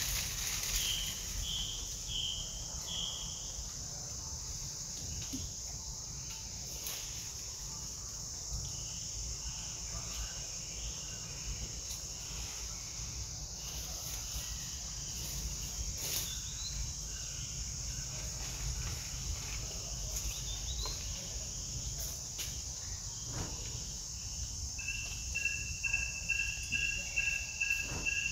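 Steady high-pitched drone of insects in a tropical forest. A few short chirps sound near the start, and in the last few seconds a rapid pulsing call on two pitches joins in.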